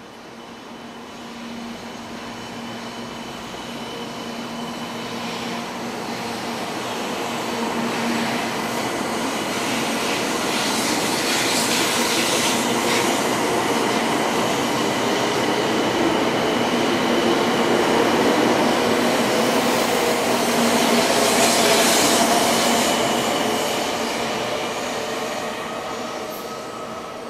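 Shinkansen bullet train running along the platform track past the listener: a rushing of wheels and air with a faint whine. The sound builds steadily, is loudest about three-quarters of the way through, then fades as the train pulls away.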